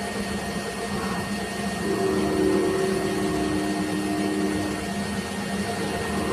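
CNC machine running: a steady motor whine and hiss, with a lower pitched tone that comes in about two seconds in and stops near five seconds.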